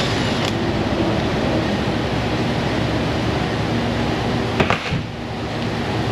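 Steady mechanical hum and hiss of a working auto shop, with a brief knock about four and a half seconds in.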